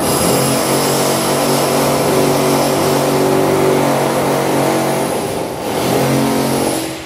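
A steady, loud motor or engine running with a hissy noise over it. It starts abruptly and drops away near the end.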